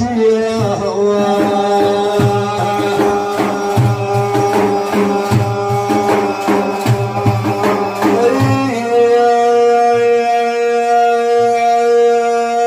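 Devotional Sufi manqabah: hand drums beat a steady rhythm under a man's voice holding long, drawn-out sung notes. About nine seconds in the drumming thins out and the voice sustains one long note.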